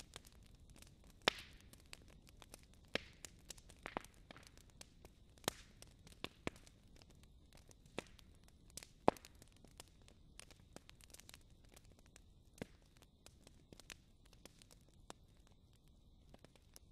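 Wood fire crackling: irregular sharp pops and snaps over a low steady rumble, thinning out in the last few seconds.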